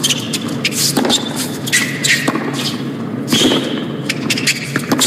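Tennis rally on a hard court: sharp racket-on-ball strikes going back and forth, with shoes squeaking on the court as the players run.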